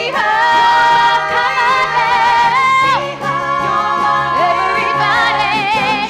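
Women singing a 1960s-style pop song with backing music. They hold one long note with vibrato, break off about three seconds in, then hold another.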